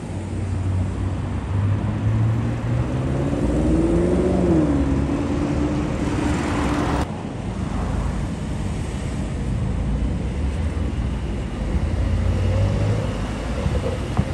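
Car engines and road traffic on a city street. Partway through, one engine rises in pitch, drops back and holds a steady note, then the sound cuts off abruptly about seven seconds in, and low engine rumble and traffic carry on.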